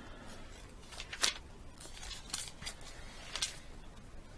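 Pages being turned: several short, soft paper rustles and swishes, the clearest about a second in, then a few more over the next two seconds.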